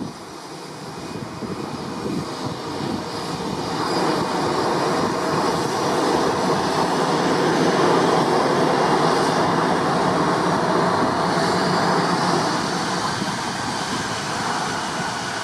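Airplane passing low overhead: its engine noise builds over several seconds, peaks about halfway through, then slowly fades, with a thin high whine in it.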